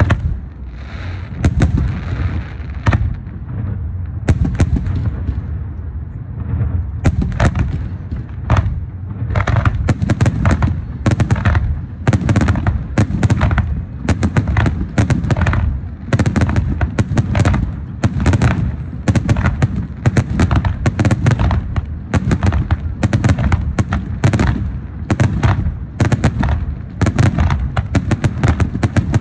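Fireworks going off in a rapid series of sharp bangs over a continuous low rumble. The bangs are sparser for the first few seconds, with a hiss early on, then thicken into a near-continuous barrage.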